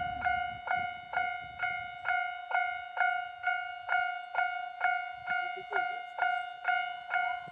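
Japanese railway level-crossing warning bell ringing, a little over two strikes a second, each strike fading before the next. It is a higher-pitched, unusual variant of the standard crossing alarm tone.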